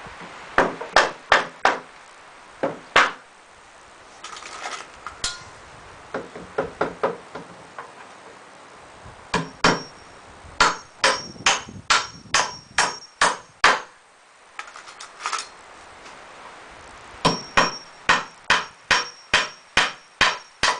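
Hammer driving nails into pallet-wood boards: runs of sharp strikes about two a second, several with a high metallic ring, with short pauses between nails.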